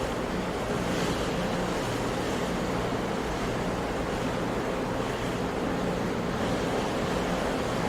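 Sea waves washing on the shore in a steady, continuous surf, with a faint steady low hum underneath.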